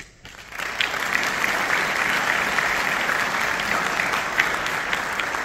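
An audience applauding, breaking out about half a second in and holding steady.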